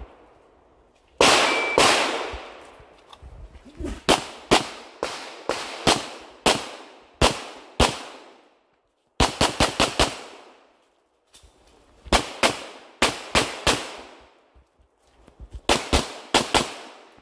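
Handgun fired rapidly in short strings and pairs, the shots in a pair about half a second apart, each shot trailing off in an echo.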